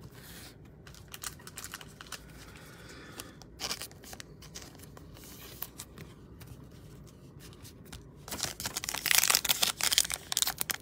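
Light clicks of cards being handled, then from about eight seconds in the loud crinkle and tear of a 2021 Panini Illusions foil trading-card pack being ripped open.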